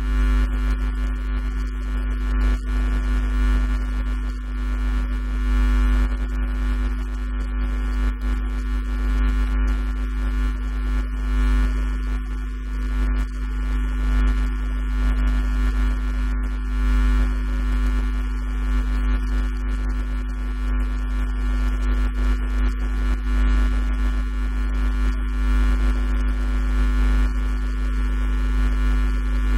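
Steady electrical mains hum, made of several steady tones with a strong low drone. No speech can be heard over it.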